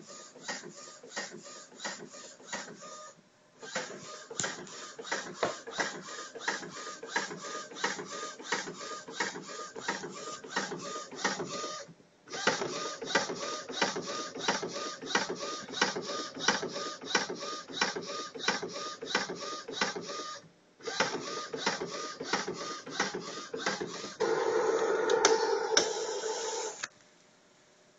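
Epson WorkForce 30 inkjet printer, converted to a flatbed, running its print mechanism: an even ticking of about three to four clicks a second with three short breaks. Near the end comes a louder steady whir lasting a couple of seconds.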